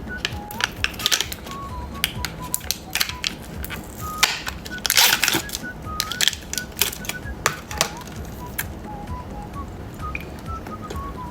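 Candy packaging crinkling and being torn open: many sharp irregular crackles and clicks, with a thicker rustling stretch about five seconds in. Soft background music with a simple melody plays underneath.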